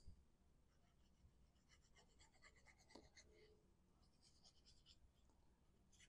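Near silence, with a faint scratching of a liquid glue bottle's tip drawn across cardstock in two short stretches; the tip needs cleaning.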